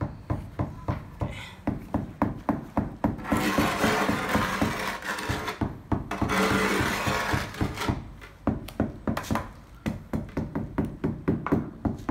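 Rapid, even knocking, about four strikes a second, as tiles are tapped down into fresh tile adhesive, with a stretch of harsh scraping in the middle as a notched trowel spreads the adhesive.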